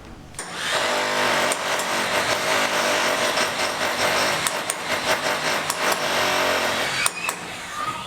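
A power tool running at a steady speed for about six seconds, a dense grinding or hammering noise with a faint hum, then stopping near the end.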